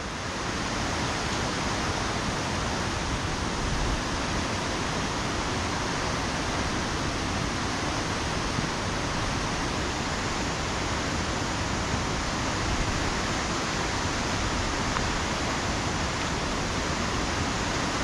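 Steady, unbroken rushing of a waterfall and its beck running high after heavy rain.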